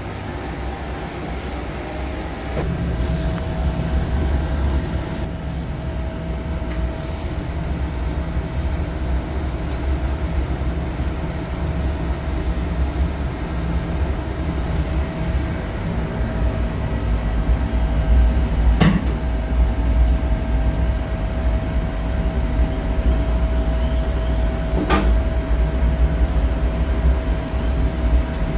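Steady low mechanical hum with a constant whine that comes in a couple of seconds in, the level stepping up as it starts. Two sharp clicks sound in the second half.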